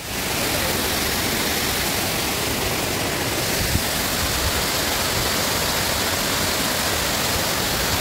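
Waterfall: falling water rushing in a steady, even wash of noise.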